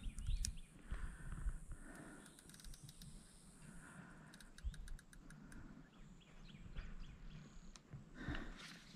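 Faint scattered clicks and light knocks of an AR-15 rifle and its gear being handled on a wooden shooting bench.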